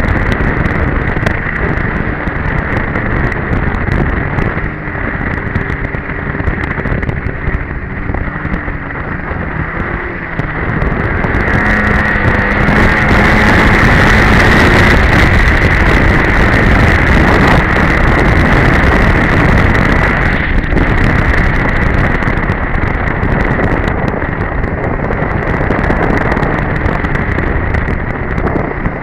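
Two-stroke Polaris Edge snowmobile engine running under way, with wind buffeting the microphone; the engine gets louder about eleven seconds in and eases off again after several seconds.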